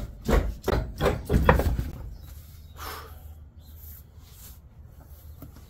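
A stuck steel wheel and tire being rocked and wrenched off a car's front hub, with a few heavy thumps and scrapes in the first two seconds, then only faint handling noise. The wheel is hard to pull because the hub is caked with silted dirt.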